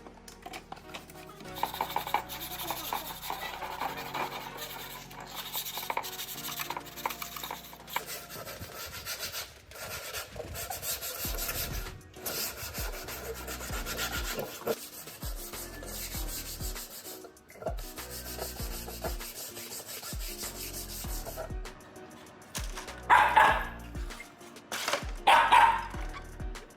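Repeated rubbing and scrubbing strokes over background music with a stepped bass line, with two louder, brief strokes near the end.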